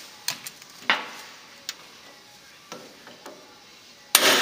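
Light metallic clinks of tools being handled, then, about four seconds in, a hammer strikes a steel bearing driver to seat an axle repair bearing on the van's rear axle: one sharp metal-on-metal hit with a ringing tail.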